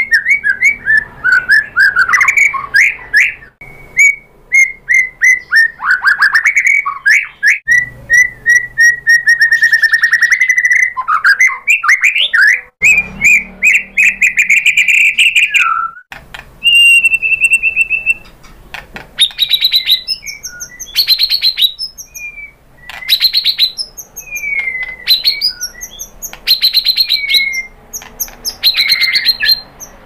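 White-rumped shama (murai batu) singing a varied, continuous song of gliding whistles, warbles and fast trills. About halfway through, the song changes to sharper, rapid rattling phrases with short pauses between them.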